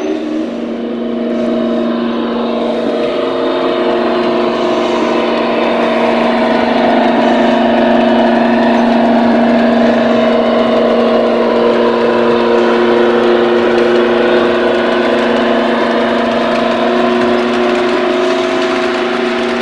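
A model locomotive's DCC sound decoder playing a diesel engine running: a steady drone that grows louder over the first few seconds and eases a little near the end.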